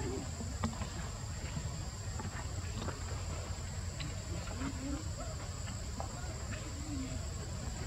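Forest ambience: a steady high-pitched insect drone over a low rumble, with scattered small clicks and a few brief low calls or voices.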